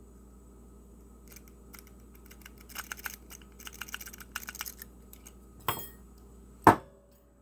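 Lock pick raking the pins of a Defiant five-pin tumbler lock: a quick run of small metallic clicks and scrapes for about four seconds, then a louder click and a sharp snap near the end as the lock opens.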